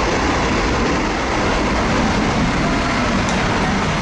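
Boeing 747's jet engines at takeoff power, a steady loud roar of jet blast.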